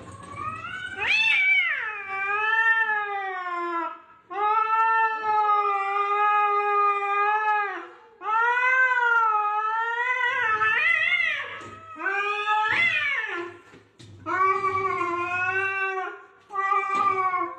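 Domestic cat yowling: about six long, drawn-out meows one after another, each a couple of seconds long and wavering up and down in pitch. This is the caterwauling of cats squaring off at each other through a window pane.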